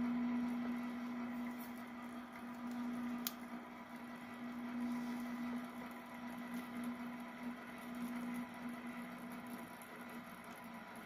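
HO scale model locomotive running along the track, giving a steady hum that is loudest at the start and slowly fades as it pulls away. A single sharp click about three seconds in.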